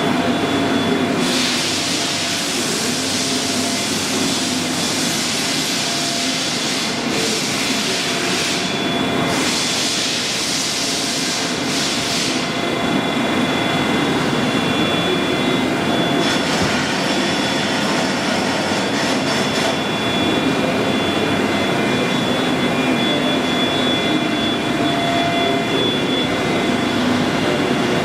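Union CBFT 105 CNC table-type horizontal boring and milling machine running: a steady mechanical hum with several high whining tones, broken in the first half by a few bursts of hiss lasting one to three seconds each.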